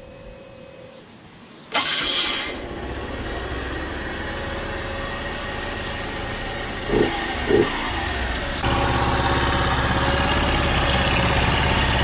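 Honda Super Cub's air-cooled single-cylinder four-stroke engine, on its stock exhaust, starting about two seconds in and then running steadily. There are two brief bursts midway, and near the end it steps up to a louder, higher-revving steady run.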